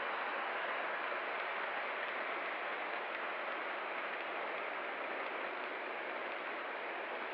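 O scale model trains rolling on the far tracks of a layout, a steady rushing hiss that eases off slightly toward the end as the passenger train moves away.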